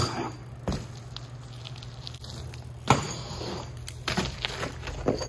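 BMX bike hopping onto and riding a concrete ledge: several sharp knocks of tyres and frame landing on concrete, the loudest about three seconds in. A steady low hum runs underneath.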